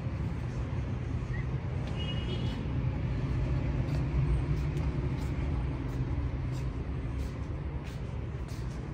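Steady low rumble of road traffic, with faint scattered ticks and a brief high-pitched squeal about two seconds in.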